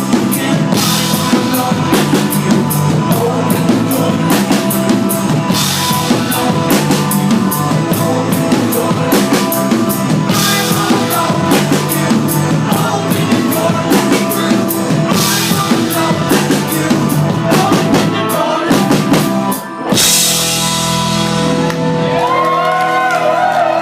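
Rock band playing live with a full drum kit, guitars and vocals, heard through a small handheld recorder's microphone. The song stops sharply about twenty seconds in and leaves a held chord ringing, and the crowd starts whooping near the end.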